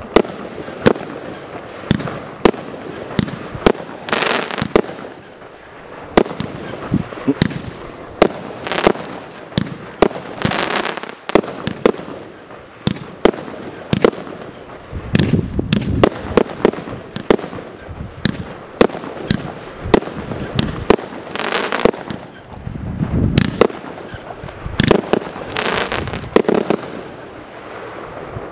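Consumer fireworks cake (battery) firing shot after shot: an irregular rapid string of sharp bangs from the tubes launching and the small star shells bursting, with a few denser, noisier stretches, dying away near the end.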